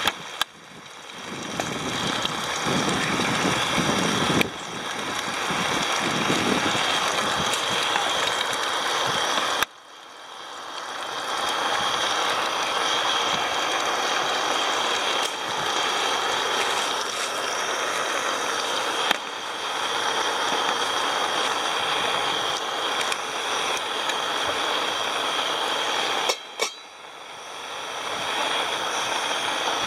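Gas camping stove burner running under a pot with a steady hiss; the sound drops out suddenly and swells back three times.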